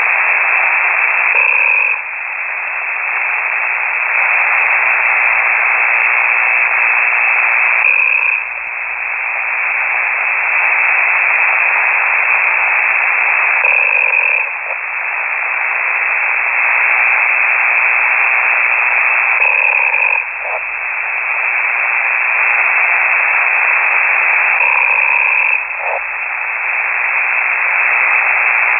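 Amateur radio signal received on a KiwiSDR: a ham operator's open microphone carrying his snoring over a band of loud radio hiss. The sound swells and drops in a slow cycle about every six seconds, like sleeping breaths.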